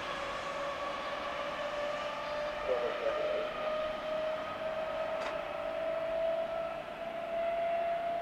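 Berlin S-Bahn class 480 electric train pulling away, its traction drive giving a steady whine that slowly rises in pitch as it gathers speed.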